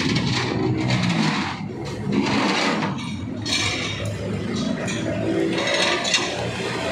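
Mini excavator's Yanmar diesel engine running while its arm is worked, with uneven bursts of scraping and clinking metal over the engine.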